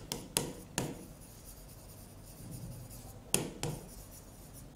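Pen writing on a board: light scratching with a few sharp taps of the tip on the surface, two of them close together a little past three seconds in.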